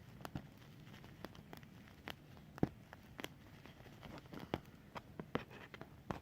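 A knife cutting a bar of white soap: irregular crisp clicks and crackles as the blade breaks through, the loudest about two and a half seconds in.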